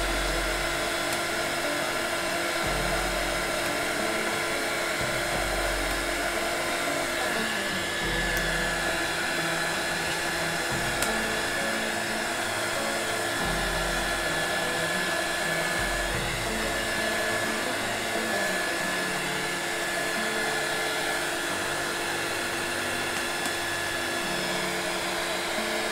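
Small 300-watt heat gun blowing hot air steadily, drying wet-applied vinyl on an acrylic plate.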